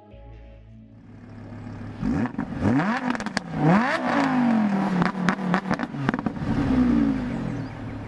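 Audi R8 V10 Plus's 5.2-litre V10 through its sports exhaust, revved while standing: three quick blips of the throttle, the last the highest, then the revs fall slowly back to a steady idle. Crackles and pops come from the exhaust around the peaks and as the revs drop.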